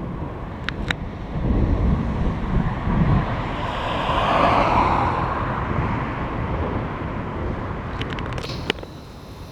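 Thunder from a summer thunderstorm rumbling low for about two seconds, starting a second and a half in. It is followed by a broad rushing sound that swells and fades over several seconds.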